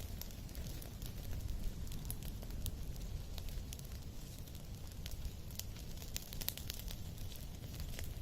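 Wood fire crackling, with irregular sharp pops scattered throughout over a steady low rumble.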